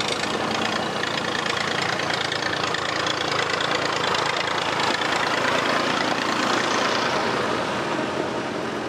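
Vintage tractor engine running under load as the tractor climbs a dirt track and passes close by, with other tractor engines behind it.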